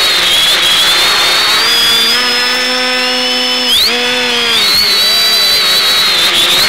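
X550 quadcopter's brushless motors and propellers running in flight: a steady high motor whine with a buzzing propeller tone. The pitch holds for a couple of seconds, drops sharply about four seconds in and rises again as the throttle changes during a turn.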